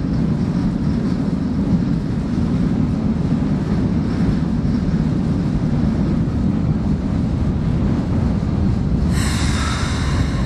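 Electric commuter train running through the station with a steady low rumble. About nine seconds in, a shrill high sound of several tones joins the rumble.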